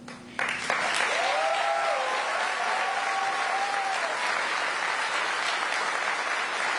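Crowd applause that breaks out suddenly about half a second in and carries on steadily. About a second in, one voice holds a long whoop above the clapping for about three seconds.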